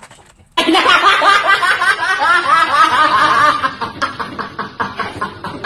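A boy laughing hard, a quick run of high-pitched giggles cutting in suddenly about half a second in.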